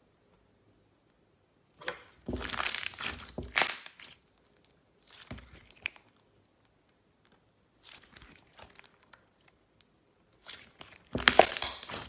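Slime being squeezed and kneaded by hand, crackling in irregular bursts of small pops and clicks: a strong burst a couple of seconds in, shorter ones in the middle, and the loudest near the end.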